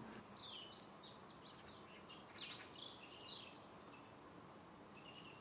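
Faint songbird warbling: a quick run of high twittering notes for about three seconds, then one short high note near the end.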